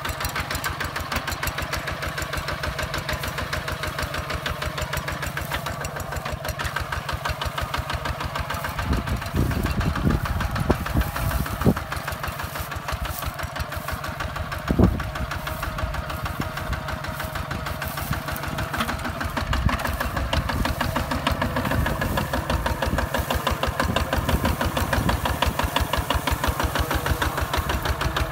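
Single-cylinder diesel engine of a Hinota HG Gold 155 DI walking tractor running under load while it pulls a plough through dry soil, with a steady, even beat. A few sharp louder knocks sound between about ten and fifteen seconds in.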